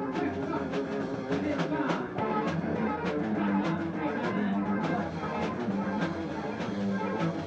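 Rock band playing: drum kit hits about twice a second in a steady beat, over sustained guitar and bass tones.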